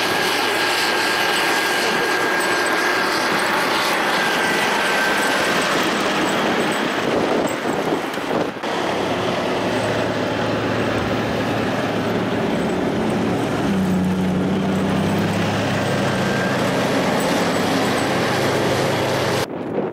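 Caterpillar motor grader's diesel engine running steadily under load as it clears a snow-covered road. The engine note strengthens briefly about two-thirds of the way through.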